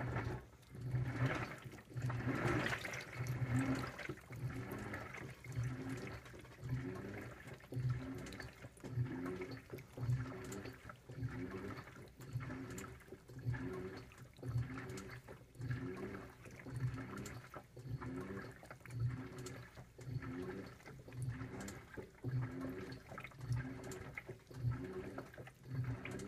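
2012 LG top-load washer agitating a load: its direct-drive motor whines in a surge about once a second as the wash plate swings back and forth, with water swishing through the clothes.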